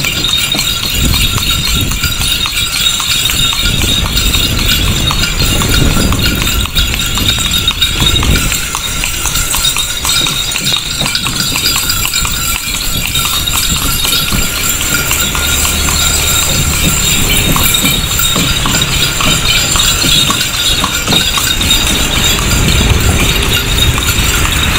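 Horse hooves clip-clopping steadily on the road as the horse pulls an open carriage, over a constant rumble and hiss of the moving ride.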